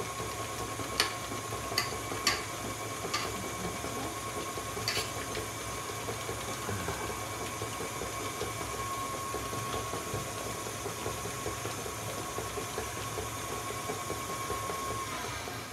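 KitchenAid stand mixer running steadily with a constant whine, beating a creamed cake batter of butter, sugar and eggs. A few light clicks come in the first five seconds. Near the end the whine drops and stops as the mixer is turned down to a slow speed for adding the flour.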